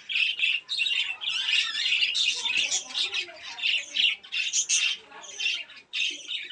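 Birds squawking and chirping in quick, overlapping bursts, many calls a second without a break.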